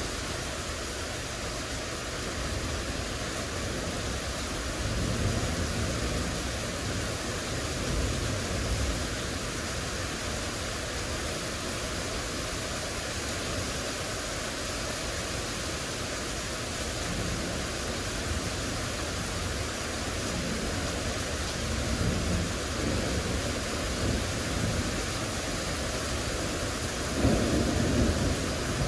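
Heavy thunderstorm rain pouring steadily. Low rumbles of thunder swell up several times, the loudest near the end.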